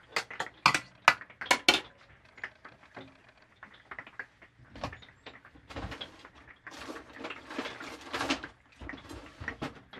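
A metal spoon scraping and clinking against a metal baking pan while stirring a thick chicken and sour cream filling, with a quick run of sharp clicks in the first couple of seconds. Scattered knocks and rustles of handling follow.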